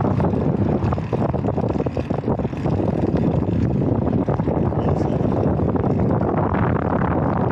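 Wind buffeting the microphone of a small action camera riding along on a bicycle: a loud, steady low rumble.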